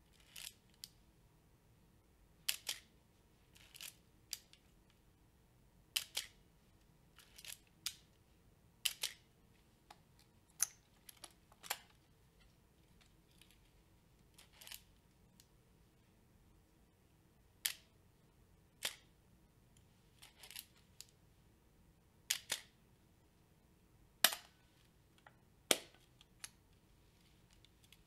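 Olympus OM-2n 35mm film SLR being operated: a series of sharp mechanical clicks from its shutter and mirror, many in close pairs, spaced irregularly a second or two apart.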